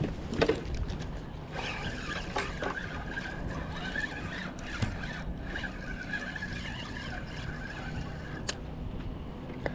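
A spinning reel being cranked, its gears giving a steady, wavering whine for about seven seconds, after a knock about half a second in.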